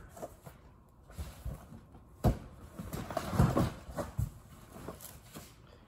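Rummaging through a large cardboard pallet box of power tools and tool bags: scattered knocks and thumps as items are shifted, the sharpest just over two seconds in and a cluster around three and a half seconds.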